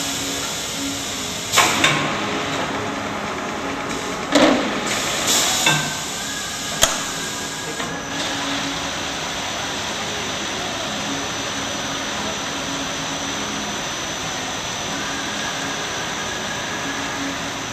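Acasi GI3100 pressure gravity liquid filler running while filling plastic gallon jugs: a steady machine noise, broken by a few sharp knocks and short hisses in the first eight seconds, then running evenly.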